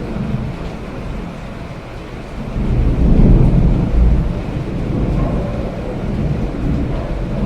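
Steady rain with a low rumble of thunder that swells about two and a half seconds in and fades over a couple of seconds.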